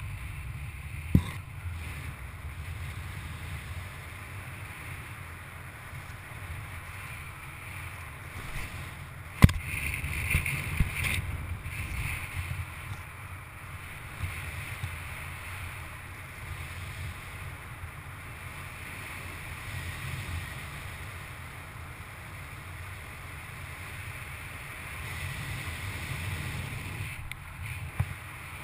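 Airflow buffeting the microphone of a camera on a paraglider pilot in flight, a steady low rumbling wind noise. A few sharp knocks cut through it, the loudest about nine and a half seconds in.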